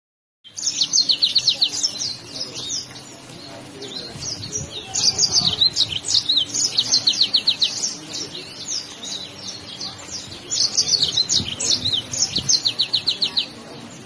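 Yellow-fronted canary (Mozambique canary) singing: a high-pitched, fast song of rapid repeated notes and trills. It starts about half a second in and swells into several loud bursts.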